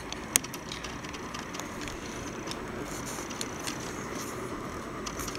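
Steady faint background noise with a single sharp click about a third of a second in.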